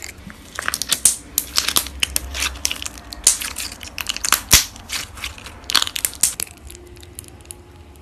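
Slime being squeezed and worked, giving a dense run of crackling, crunching pops that thins out about six and a half seconds in.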